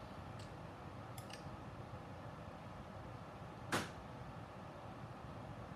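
Small handling clicks from soldering work over a steady low room hum: a couple of faint ticks in the first second or so and one sharper tap about three and a half seconds in, as a soldering iron and wires are handled at a receiver board.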